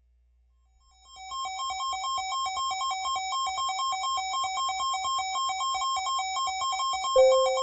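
Electronic alert tone: a buzzy, synthetic warble flipping rapidly between two pitches, about four or five times a second, starting about a second in. A lower steady beep cuts in near the end. It is the attention signal that comes before the next emergency weather warning.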